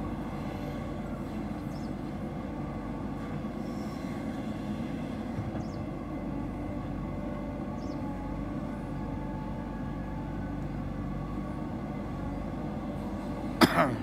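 JCB 3DX backhoe loader's diesel engine running steadily under load as it works the backhoe hydraulics. A loud, sharp double bang comes near the end.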